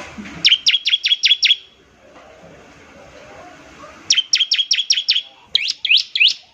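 Bar-winged prinia (ciblek) singing its rapid 'nembak ngebren' phrase: two bursts of sharp, evenly repeated falling notes, about six a second, the second burst running into a few slower sweeping notes near the end.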